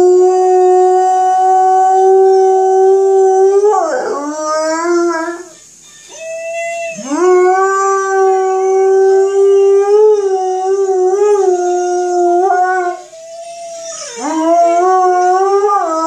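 Alaskan malamute howling: three long howls with short breaks between them, each sliding up at the start and then held on one pitch. The first dips and swings back up about four seconds in, and the second wavers near its end.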